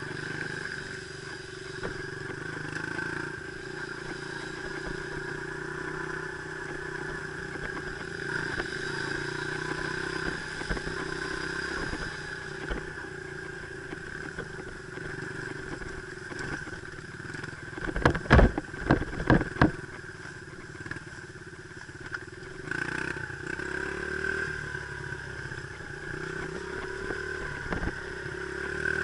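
Dirt bike engine running at a fairly steady speed. A quick run of about five loud knocks, around eighteen to twenty seconds in, is the loudest thing heard.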